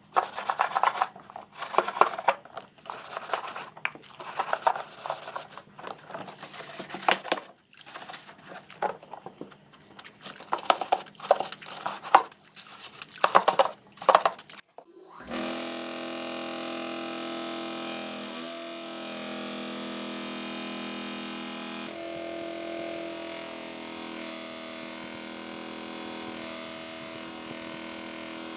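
Rapid, irregular clicking and scraping of handwork, then, about halfway through, a sudden switch to a steady mechanical hum with several steady tones.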